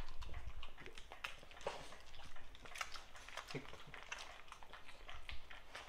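Dogs licking and chewing cake crumbs off a hardwood floor: scattered faint clicks and smacks.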